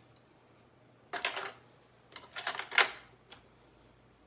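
Metal cutlery clinking as forks and spoons are taken from a dishwasher silverware basket and set into a drawer: a cluster of clinks about a second in, then several more a little later, the sharpest about two thirds of the way through.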